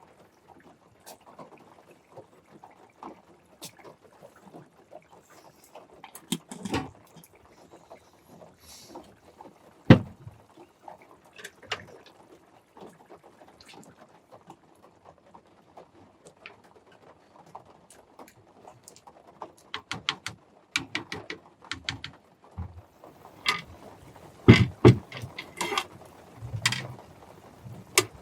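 Irregular clicks and knocks, scattered at first and busier in the last third, with one sharp knock about ten seconds in.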